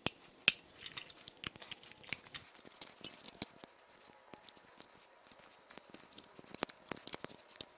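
Faint, scattered clicks and light rattles of plastic wiring-harness connectors being handled and worked at by hand on the engine.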